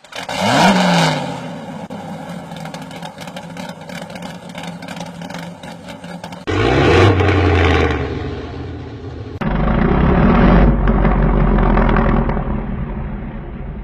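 Loud car engine revs, the supercar noise used to startle people, in several short clips with abrupt cuts between them. One loud rev with a pitch glide comes about half a second in, another at about six and a half seconds, then a steady loud low run from about nine and a half seconds.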